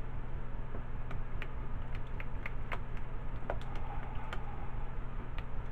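A spatula stirring thick soap batter in a plastic mixing bowl, giving irregular light clicks and taps against the bowl, over a steady low hum.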